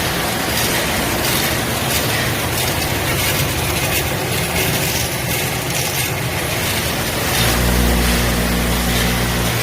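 A production line of a B20 machine, an RT-20C thread roller and a CN-90 wire-welding collator running together: a dense, steady mechanical clatter and hiss with faint repeated ticks, and a low motor hum that grows stronger a couple of seconds before the end.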